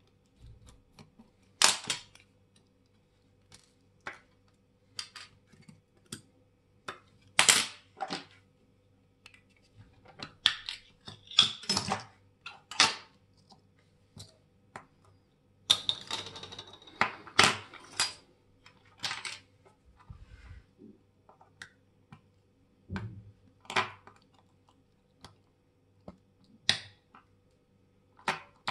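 Irregular sharp clicks and taps of small metal watchmaker's tools and parts handled on a watch, with a brief scraping about sixteen seconds in.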